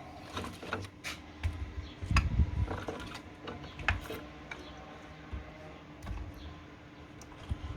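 Small sticks and kindling being stacked over an oil-soaked paper pouch to build a fire: irregular light wooden clicks and knocks, with a louder cluster of knocks about two seconds in.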